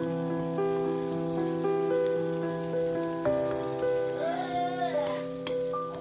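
Vegetables and egg sizzling as they are stir-fried in a skillet, under background music of held chords that change every second or so. A single sharp tap sounds near the end.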